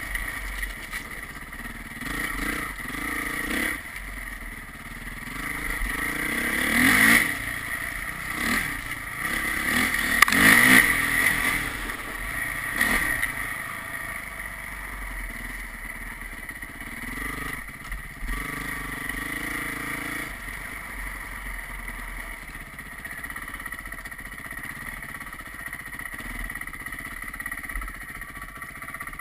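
A vehicle engine running under way, with road and wind noise. It revs up sharply about seven seconds in and again around ten to eleven seconds, then settles to a steadier cruise.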